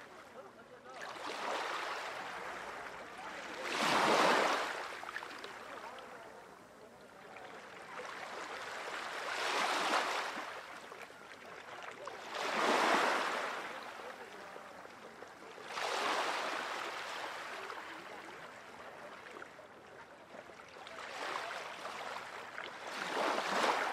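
Small sea waves washing onto the shore, coming in as separate surges every few seconds, each swelling up and then fading away.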